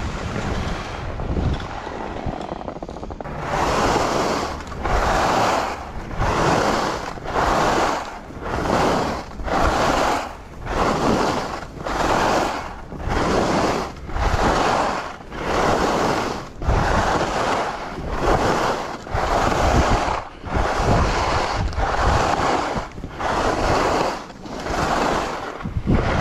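Skis swishing through snow in quick linked turns, a regular swish about once a second, over the low rumble of wind on the microphone.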